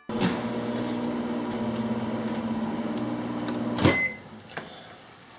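Danby microwave oven running with a steady hum. The hum stops about four seconds in with a clunk as the door latch is opened, followed by a short beep.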